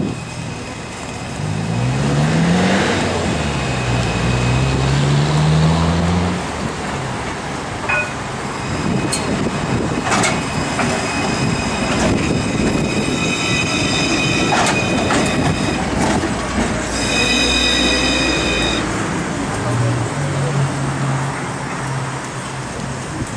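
Alstom Citadis C1-class tram pulling in: first its electric traction motors whine up and down in pitch, then the wheels knock over the track and squeal high on the rails for several seconds, and near the end a steady low hum comes from the tram as it stands.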